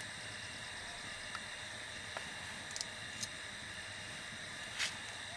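Steady background hiss with a few faint clicks, and one sharper click about five seconds in.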